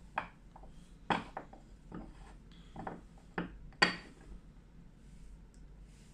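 Light knocks and clicks from a smartphone being handled and set against a hard surface: about seven separate taps, the sharpest about two-thirds of the way through.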